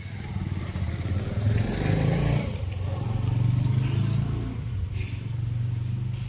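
A vehicle engine running with a steady low hum, swelling louder about two seconds in and again around three to four seconds.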